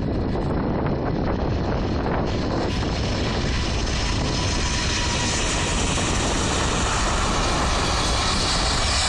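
Airbus A380's four turbofan engines at takeoff power: a loud, steady jet rumble that grows brighter and hissier from about two seconds in.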